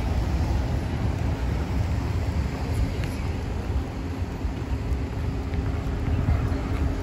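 Street traffic noise at a road crossing, with wind buffeting the microphone in a low, uneven rumble. A faint steady engine hum comes in during the second half.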